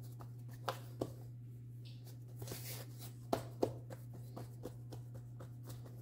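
Hands pressing and patting soft dough out across a steel pan to flatten out its air bubbles, giving scattered soft taps and light knocks, over a steady low hum.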